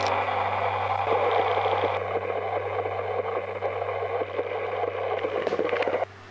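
Steady rush of running water that cuts off suddenly near the end.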